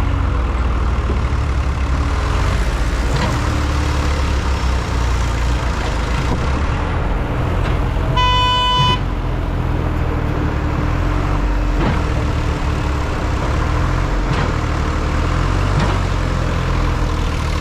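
A heavy vehicle's engine running steadily, with one short horn toot about eight seconds in.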